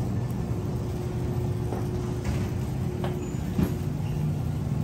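Steady mechanical hum of a large store's refrigerated display cases and ventilation, with a few faint clicks and one sharper knock about three and a half seconds in.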